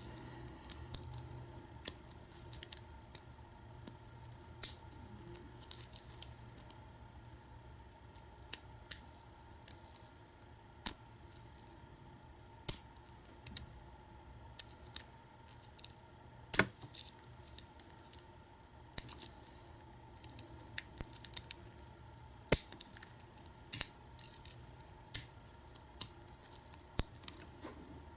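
Lock pick and tension wrench working the pins of a Kwikset-keyway pin-tumbler cylinder during single-pin picking: irregular small metallic clicks and ticks. A faint steady hum runs underneath.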